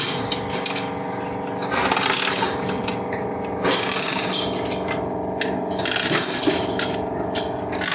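Scattered clinks and knocks of parts being handled as a burnt transformer coil is taken apart, over a steady mechanical hum.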